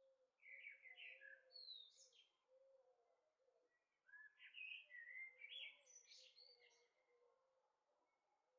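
Birds chirping faintly in two bouts of quick twittering calls, the second longer than the first.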